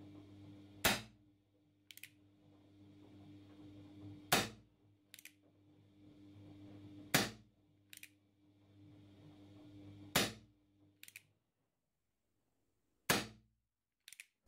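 Umarex Legends Western CO2 airsoft revolver firing five single shots about three seconds apart through a chronograph, each a sharp gas pop. A fainter short click follows about a second after each shot.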